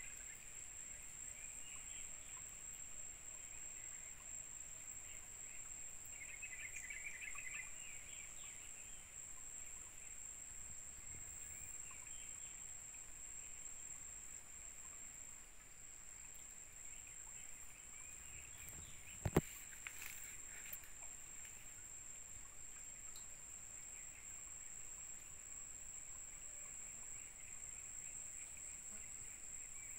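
Faint forest ambience: a steady high-pitched insect drone, with scattered short chirping calls. A single sharp click about two-thirds of the way through.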